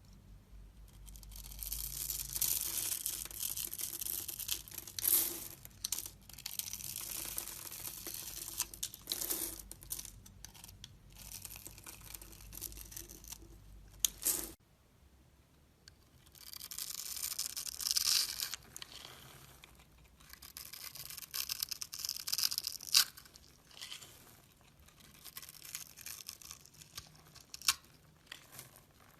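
A blade carving into a bar of soap: long runs of crisp, crunchy scraping strokes with short pauses, and a few sharp snaps. The background changes abruptly about halfway through.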